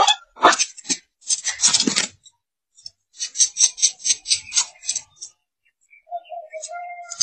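Rough rasping and tearing noises in short bursts, with a quick run of them in the middle, as a predator tears at a dead hen. Near the end a brief pitched whine.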